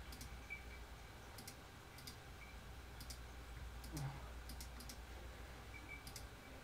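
Scattered quiet clicks of a computer mouse and keyboard, singly or in quick pairs, over a faint steady low hum.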